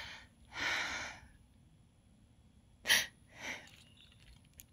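A person close to the microphone sniffling and breathing: one long breath about half a second in, then two short, sharp sniffs around three seconds in.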